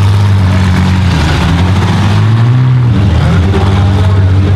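Several pickup truck engines running hard while racing, overlapping, their pitch rising and falling as the trucks accelerate and back off.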